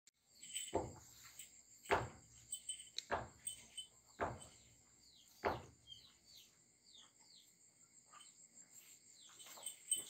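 A cow licking her calf's head: five loud rasping strokes about a second apart, stopping after about six seconds. Small birds chirp in short falling notes throughout, over a steady high insect trill.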